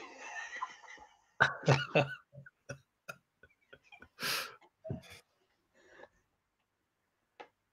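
A plush Goose cat toy plays its built-in cat sound when its chest is pressed, a noisy cat noise lasting about a second. Laughter and light handling clicks follow, with a breathy burst near the middle.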